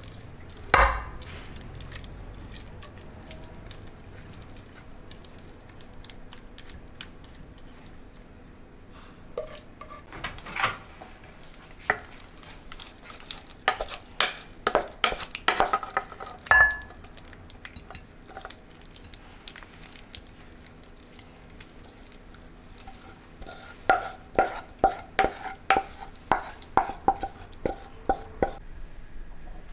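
A metal spoon clinking and scraping against kitchenware, in two runs of quick taps that each give a short ringing tone, with a couple of louder knocks, one about a second in and one in the middle.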